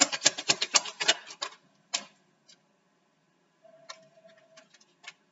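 A quick run of sharp clicks for about a second and a half, then a few scattered single clicks.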